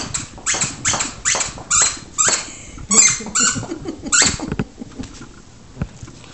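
A dog chewing a plush squeaky toy, squeezing out short squeaks about twice a second. The squeaking stops a little past halfway.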